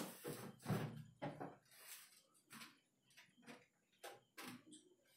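Faint, irregular taps and scuffs of a person moving about at a whiteboard, thickest in the first second or so and sparser after.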